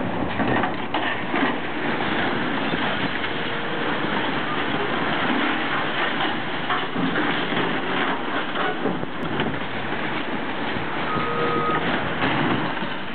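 Caterpillar tracked hydraulic excavator tearing down a brick and steel building: its diesel engine runs under load through continuous crunching and clattering of breaking masonry, wood and metal debris.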